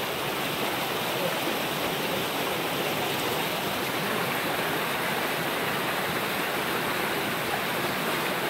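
Spring water gushing out of a cave mouth and rushing over rocks in a fast, clear stream: a steady, even rush of whitewater.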